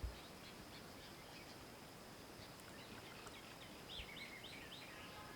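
Faint outdoor ambience with scattered bird chirps and a quick run of bird calls about four seconds in. A low thump at the very start.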